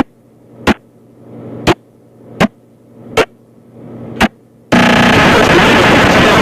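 Five sharp clicks about a second apart, each coming out of a short rising swell, over a faint low hum; about three-quarters in, loud harsh distorted noise cuts in suddenly and keeps going.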